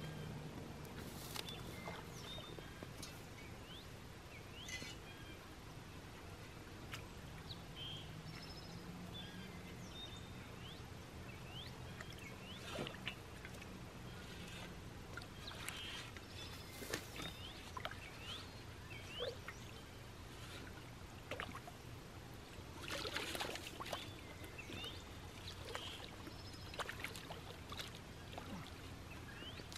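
Shovel blade reached into shallow pond water and dragged through it, giving small splashes and sloshing, with a longer, louder slosh about three quarters of the way in. Faint short high chirps come and go throughout.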